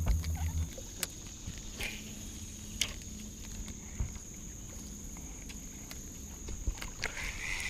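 Steady high-pitched insect drone from crickets or cicadas, with a few sharp clicks and knocks scattered through it. A low hum stops about half a second in.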